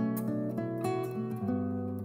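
Background music: a strummed acoustic guitar playing a gentle chord progression.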